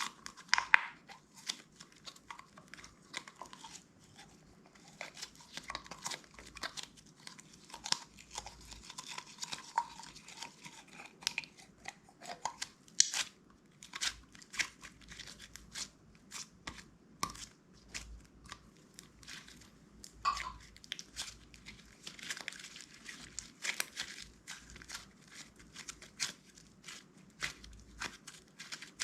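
Clear slime being squished and mixed by hand, giving irregular sticky clicks, crackles and pops.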